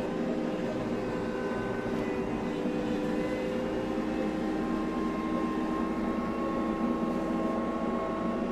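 New TYM compact tractor's diesel engine running steadily as the tractor drives along, with a higher whine that joins about halfway through.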